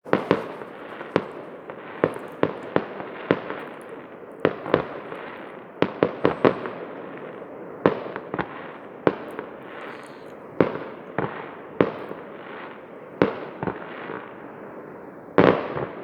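Fireworks going off: a rapid, irregular string of sharp bangs, sometimes two or three close together, over a continuous crackle, with a longer, louder burst near the end.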